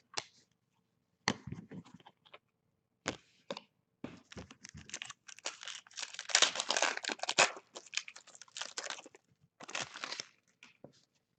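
A foil trading-card pack torn open and its wrapper crinkled in the hands, in irregular crackling bursts that are busiest in the middle and again near the end.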